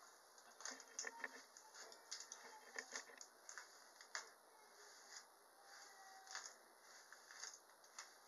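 Faint, irregular crackling and soft clicks of hands gathering and smoothing thick, coily natural hair up into a puff.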